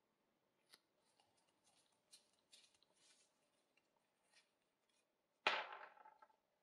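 Small metal binocular parts handled in gloved hands: faint clicks and rubs, then one louder sharp metallic clack with a short rasping tail about five and a half seconds in.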